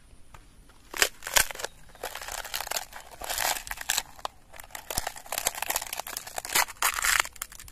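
Dry, brittle outer skin being cracked and peeled by hand off a dried luffa gourd to free the fibre scrubber inside: crackling and crunching, starting with two sharp snaps about a second in and going on in irregular bursts.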